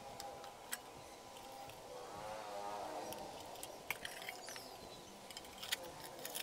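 Light clicks and taps of hands handling a rice cooker's thin metal outer shell and the wiring and switch parts inside it, a few sharp clicks spread through.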